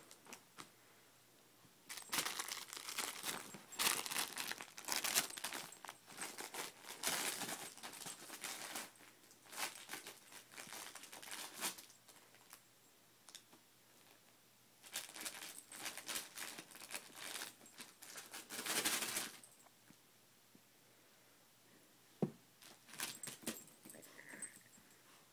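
Plush dog puzzle toy rustling and crinkling as a Miniature Pinscher noses and digs into it, in two long bursts several seconds each, with a few sharp clicks near the end.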